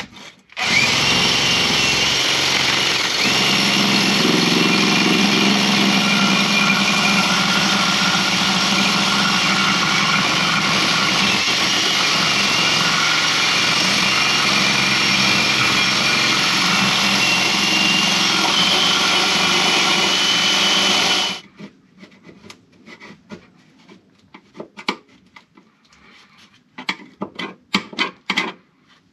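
A power tool runs at a steady pitch for about twenty seconds, then stops suddenly. Light clicks and scrapes follow.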